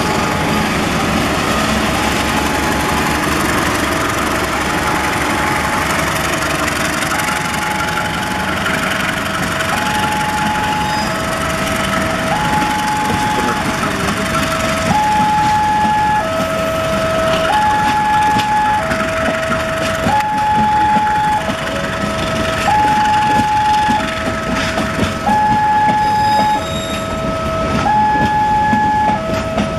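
Railway level-crossing alarm sounding a steady two-tone signal, the two notes alternating about every second and a quarter, growing louder about halfway through. Underneath is the steady rumble of a train's diesel engine running.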